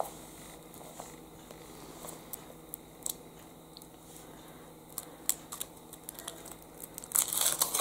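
Foil wrapper of a Kinder Surprise chocolate egg crinkling in scattered small crackles as it is peeled off by hand, with a louder rustle near the end.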